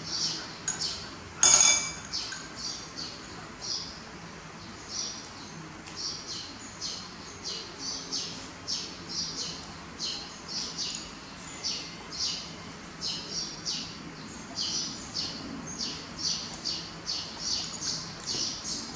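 A small bird chirps over and over in the background, short high chirps about two or three a second. A single loud clink of a metal spoon against a bowl comes about a second and a half in.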